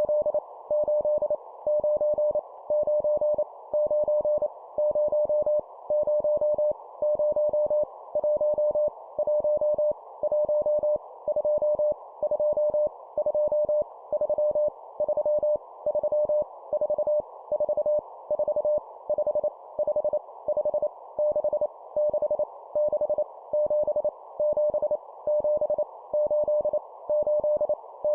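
Morse code (CW) practice tone sending numbers at 25 words per minute, each number repeated three times: a single steady mid-pitched beep keyed on and off in dots and dashes. A constant hiss sits around the tone between the beeps.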